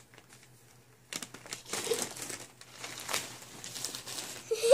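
Gift-wrapping paper crinkling and tearing as a present is unwrapped, starting about a second in, with a brief vocal sound near the end.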